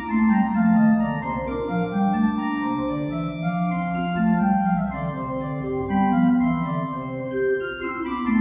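Church organ playing a slow piece of sustained chords that change every second or so.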